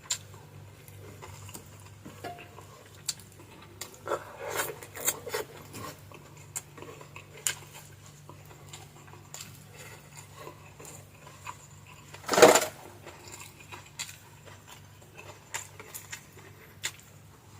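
Eating at a table: scattered small clicks and clinks of cutlery against dishes, busier about four to five seconds in, with one louder noise about twelve seconds in, over a faint steady low hum.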